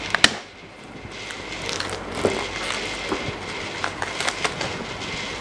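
Clear plastic shrink-wrap on a cardboard box being cut, torn and peeled away: irregular crinkling and crackling with scattered sharp clicks, the loudest two just after the start.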